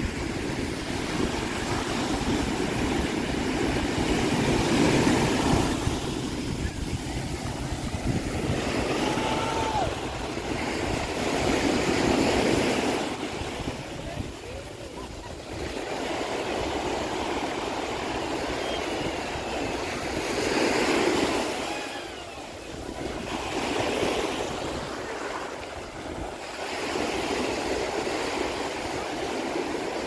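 Ocean surf breaking and washing up the sand, swelling and fading every few seconds, with wind rumbling on the microphone.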